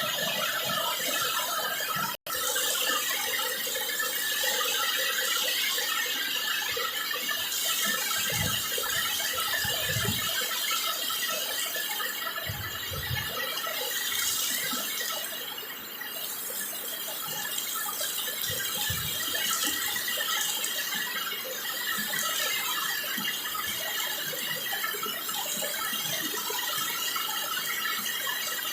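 Steady rain falling, an even, dense hiss, cut off for an instant about two seconds in.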